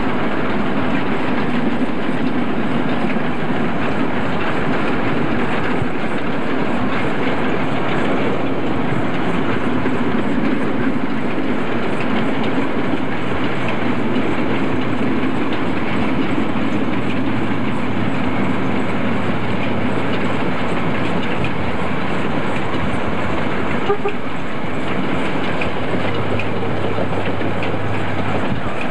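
Steady, continuous running noise of a train on the move, heard from a vehicle travelling alongside it: Western Australian Pm-class steam locomotive Pm706 hauling its water tanker.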